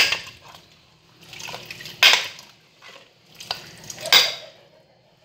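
A spoon stirring a wet stew in a pressure-cooker pot, knocking and scraping against the pot's side: a sharp knock at the start, then separate strokes about two, three and a half and four seconds in, with the squelch of the wet contents.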